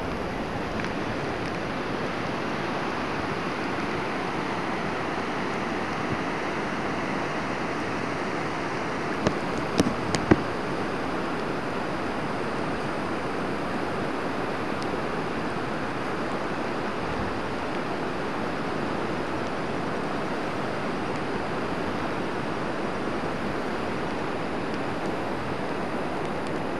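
Steady rushing of fast, muddy floodwater from a river over its banks. A few short clicks come about ten seconds in.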